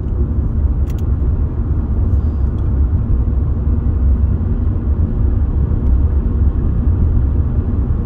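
Steady low rumble of a car's road and engine noise heard from inside the cabin while driving on a snow-covered highway.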